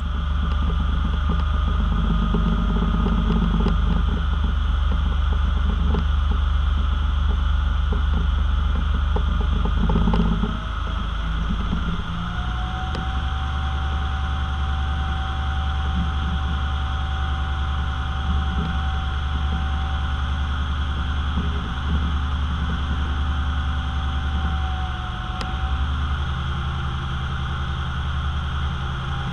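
Diesel engine of a B-double tipper semi running steadily while the tipper is raised to dump the load. The engine note changes about ten seconds in, and a steady high whine runs through the second half.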